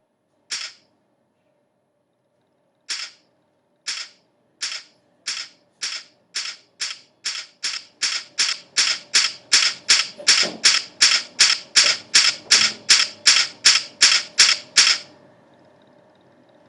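A series of sharp clicks, sparse at first, then coming faster and faster until about three a second, stopping abruptly near the end; a faint steady hum lies beneath.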